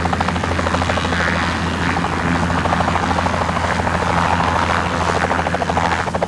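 A two-bladed light turbine helicopter running at full power as it lifts off the grass into a low hover. It makes a fast, steady chop of rotor-blade beats over a low hum, with the beats growing stronger near the end.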